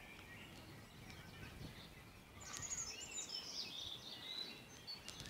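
A songbird singing a rapid, varied, high-pitched warbling phrase starting about two and a half seconds in, over faint outdoor background noise.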